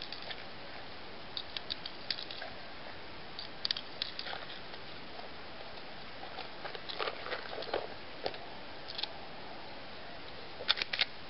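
Scattered light clicks and rustles of a person handling gear and shifting on the forest floor, over a steady hiss.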